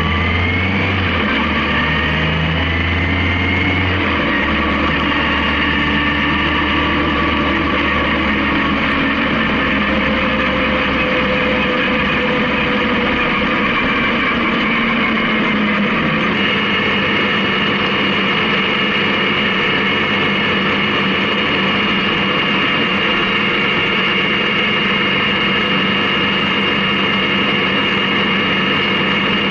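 Honda CB750K air-cooled inline-four motorcycle engine running on the road with steady wind and road noise. Its pitch shifts over the first few seconds, then it holds a steady cruise.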